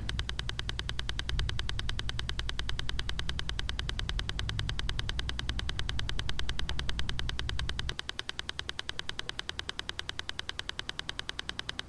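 A rapid, steady pulsing in the background, about ten even beats a second. A low rumble under it stops about eight seconds in.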